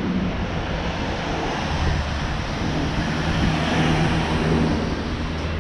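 Street traffic: a motor vehicle's engine hum with road noise close by, swelling slightly in the second half.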